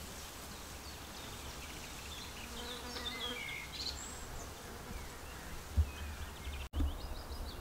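An insect buzzing, over a low rumble on the microphone, with faint high chirps and a couple of short thumps near the end.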